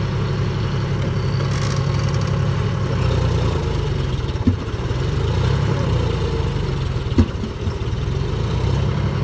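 John Deere tractor's diesel engine running steadily, with two short knocks about halfway through and near the end.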